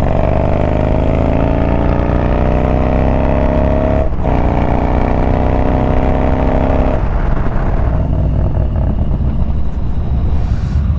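Yamaha Bolt's air-cooled V-twin engine pulling hard, its pitch rising. It breaks off briefly about four seconds in for an upshift, rises again, and eases off after about seven seconds into a steady cruise.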